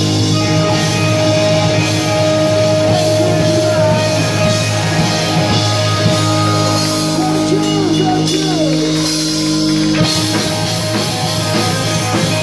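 Live punk rock band playing loud: electric guitars holding sustained chords over drums, with singing. The bass drops out about ten seconds in, leaving the guitars ringing.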